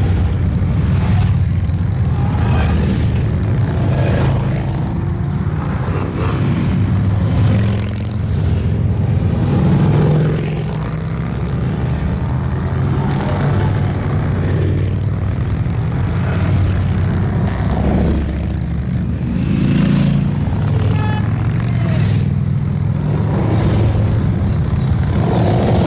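A steady stream of motorcycles riding past, their engines running together in a continuous low drone. It swells and eases several times as groups of bikes go by.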